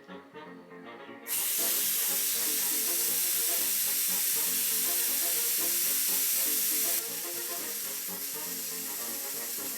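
Aerosol spray-paint can hissing steadily, starting abruptly about a second in and dropping slightly in level about seven seconds in, over background music.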